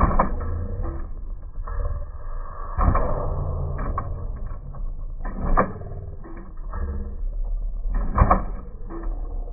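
Small servo motors in an AMT 1962 Impala scale-model hopper, whirring and creaking as they lift and drop the model's front end, with sharp knocks of the plastic car coming down on the table every few seconds, the loudest about eight seconds in.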